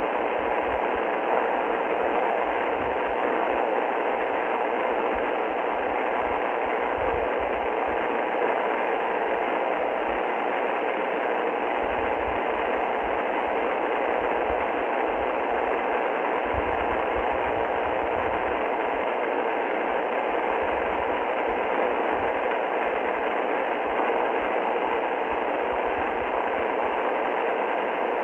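Steady shortwave static hiss from an Icom IC-R30 receiver in upper-sideband mode on 6.955 MHz, with no clear speech or music coming through.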